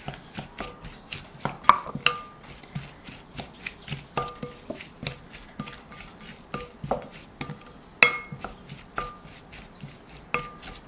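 Wooden spoon stirring chopped kimchi and vegetables in a glass mixing bowl. The spoon clicks and knocks irregularly against the glass, and some strikes make the bowl ring briefly; the loudest knocks come about two seconds in and again near eight seconds.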